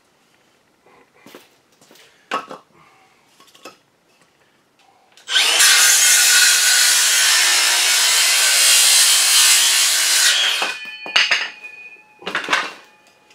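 A power saw cutting through a pressure-treated wooden board, a steady loud cut of about five seconds that stops fairly abruptly, followed by a short fading whine as the blade spins down. A few knocks of the board being handled come before and after.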